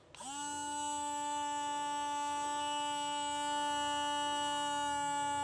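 Rechargeable portable bottle blender motor running with water in its jar: it spins up quickly right at the start, then holds a steady whine at one pitch.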